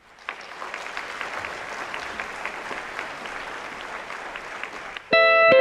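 An audience applauding, steady clapping at the close of a talk. About five seconds in, louder music with several held notes cuts in abruptly over it.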